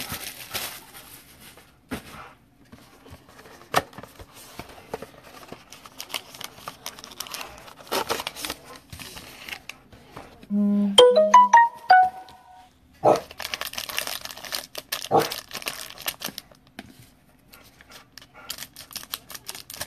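Crinkling and tearing of plastic wrap and handling of a cardboard card box, heard as many small crackles and ticks: a sealed hobby box of trading cards being unwrapped and opened. About ten seconds in comes a short electronic jingle of a few stepped notes.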